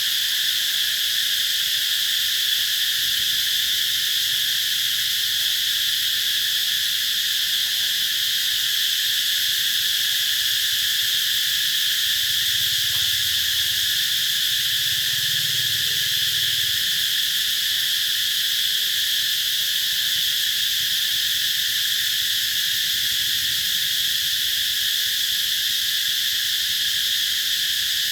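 A chorus of cicadas making a very loud, steady, shrill buzz that stays level without a break.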